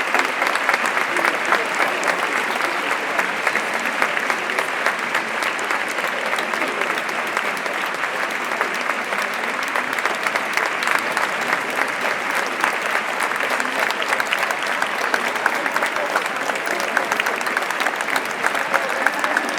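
Crowd applauding steadily: many hands clapping in a dense, continuous patter.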